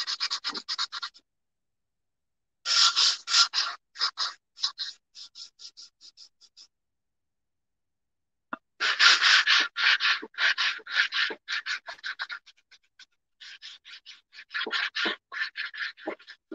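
Sanding block rubbed back and forth over a painted terracotta flower pot, rasping strokes at about four a second in four runs with short pauses between. The sanding distresses the fresh paint so the terracotta shows through.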